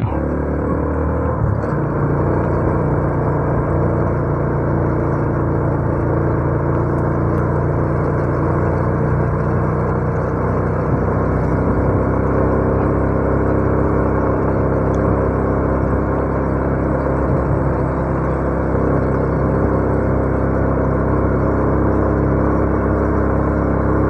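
Honda Revo 110's single-cylinder four-stroke engine running steadily while riding, with an even rush of road and wind noise over it.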